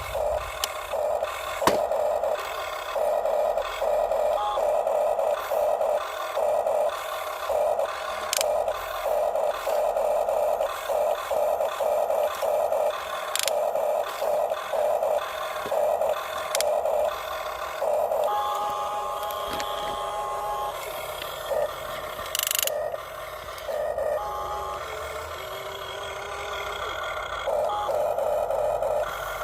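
Electric gear motors of a Huina 1550 radio-controlled toy excavator whining in short stop-start bursts as the arm and bucket are worked. About 18 seconds in, a steadier, higher whine runs for a few seconds, and a few sharp knocks stand out.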